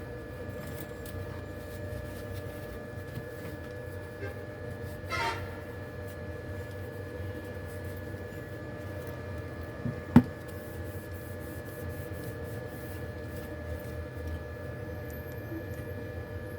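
A steady hum throughout, with a brief scrape about five seconds in and one sharp click about ten seconds in.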